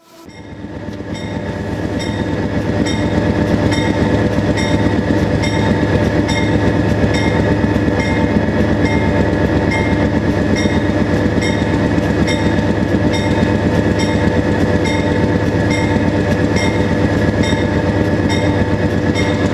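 GE AC4400CW diesel locomotives' 16-cylinder turbocharged engines working hard under a heavy train: a loud, steady drone that fades in over the first two seconds, with a faint tick about twice a second.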